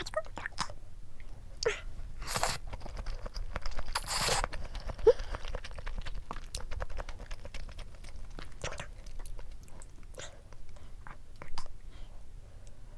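A person eating cold spicy bibim-myeon noodles wrapped around raw salmon. There are two noisy slurps about two and four seconds in, then wet chewing with small mouth clicks.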